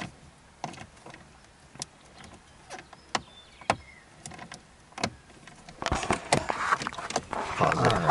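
Scattered clicks of a small 9/32 socket on a hand driver working at dash trim screws, a socket that struggles to grip. Near the end there are about two seconds of dense clattering and rattling of the tool and its parts.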